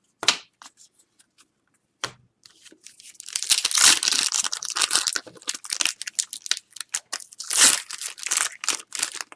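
Foil trading-card pack wrapper being torn open and crinkled by hand, with a couple of light clicks before the tearing and crackling start about two and a half seconds in.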